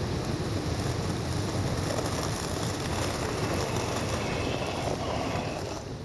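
Steady wind rumble on the microphone, with the faint whir of an RC crawler's electric motor and gears as it climbs close past, fading out near the end.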